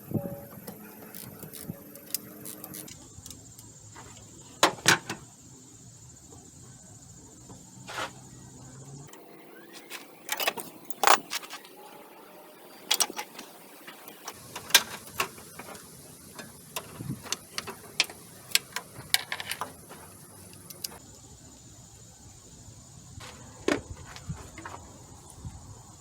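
Scattered metallic clicks, clinks and knocks of hand tools, a socket and wobble extension, working on the power steering high-pressure hose fitting. The sounds come at irregular intervals, with a few sharper, louder knocks.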